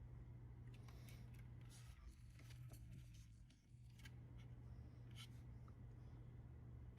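Faint handling noise: a few light clicks and rubs as the plastic fog-light trim cover is handled, over a low steady hum.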